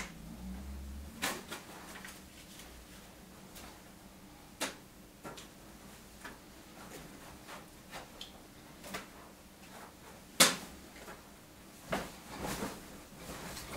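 Scattered light taps and knocks in a small room, a dozen or so spread irregularly, with one louder knock about ten seconds in: a person moving about and handling a folded paper airplane as it is thrown, lands and is picked up off the floor.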